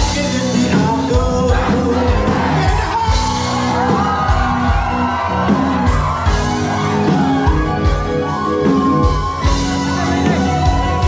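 Live band playing a song through the club's PA, with a lead singer over a steady drum beat and the crowd shouting along.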